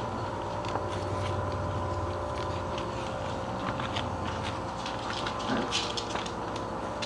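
English bulldog puppies scuffling and play-biting on a bedsheet: scattered soft clicks and rustles over a steady background hum.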